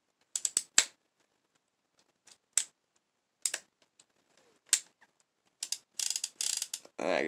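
Ruger GP100 double-action revolver's action being worked by hand: sharp metallic clicks as the hammer is thumbed back and the cylinder turns. A few single clicks come spread apart, then a quicker run of clicks near the end.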